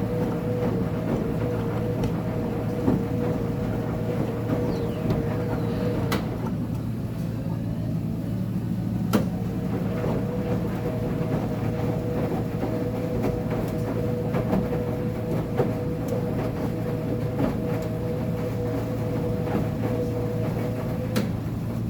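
Uni-Mac UniMat 35 commercial front-load washer running its wash cycle: a steady hum with a motor whine that stops for about three seconds, about six seconds in, then starts again, as the drum pauses and turns the other way. A few sharp clicks are heard, including one as the whine stops and one as it resumes.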